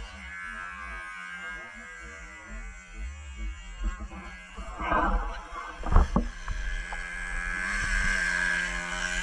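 Small two-stroke glow-fuel engine of a 4WD nitro RC truck running and revving, with a sharp thump about six seconds in and a high steady whine near the end.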